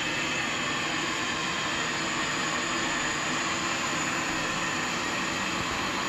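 Dyna King R7 robot vacuum running, a steady hiss of its suction fan and brushes as it moves across a hard floor.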